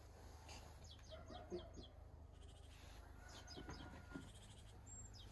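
Near silence: faint high bird chirps over a low steady hum.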